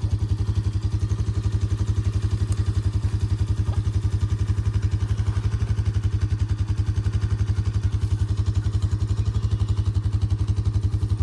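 Small engine running steadily at an even idle, with a fast, regular pulse and a strong low hum.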